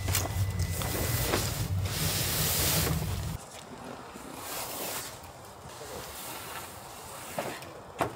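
Wind rumbling on the microphone over the rustle and scrape of a large padded nylon bag being pulled from a car boot and dragged across a wooden deck. The low rumble cuts off abruptly about three seconds in, leaving quieter rustling and a few light knocks.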